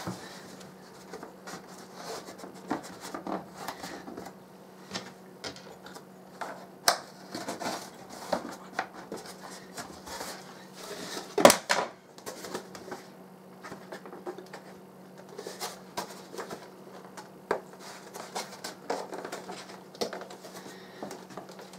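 Handling noises from assembling a foam model plane: scattered light clicks, knocks and rubbing as carbon rods are fitted through the fuselage's wooden wing mount and parts are handled on a wooden tabletop, with one louder knock about halfway through. A low steady hum runs underneath.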